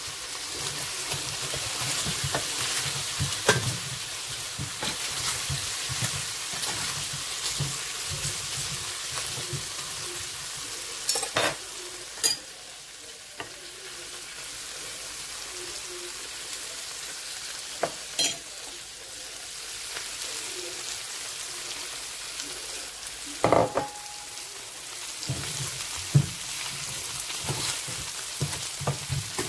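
Chicken pieces sizzling steadily in a stainless-steel Saladmaster skillet, frying in the fat rendered from the chicken itself with no added oil. A few sharp metal clinks of a spoon and tongs against the bowl and pan stand out above the sizzle.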